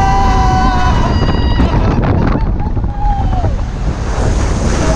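People screaming on a water coaster, several high voices held for a second or so and fading about a second in, with a shorter falling scream later. Under them is a heavy rush of wind on the microphone and water noise.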